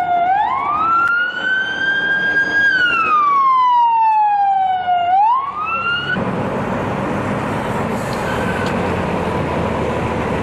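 Emergency vehicle siren wailing: one slow rise, a hold and a slow fall, then it begins to rise again and cuts off about six seconds in. A steady rushing noise follows.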